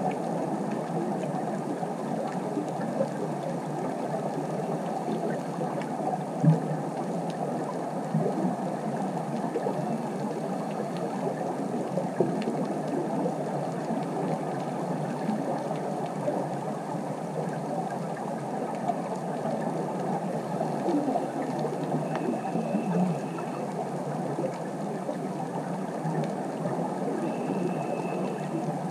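Underwater ambient noise: a steady crackling hiss with one sharp click about six seconds in, and a faint short high tone twice near the end.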